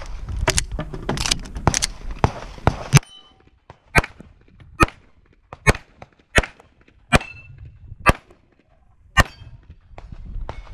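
9mm major Open-division pistol firing: a fast string of shots in the first three seconds, then single shots at a slower pace, roughly one a second. Some shots are followed by a faint metallic ring, typical of steel targets being hit.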